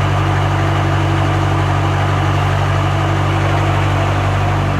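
Heavy truck's diesel engine idling steadily with an even low hum.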